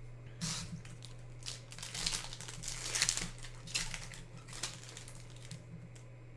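Foil wrapper of a Yu-Gi-Oh booster pack crinkling in the hands as it is torn open, in irregular crackles that die away about five seconds in.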